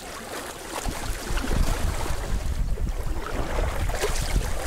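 Wind buffeting the microphone in a low rumble, over water slapping and splashing around a kayak paddled on choppy water, with irregular short splashes from the paddle blades.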